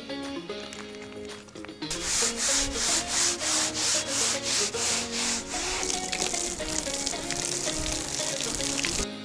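A Scotch-Brite pad scrubbing soapy plastic on a Jeep hardtop in quick back-and-forth strokes, about three a second. The scrubbing starts about two seconds in and stops just before the end, over background music.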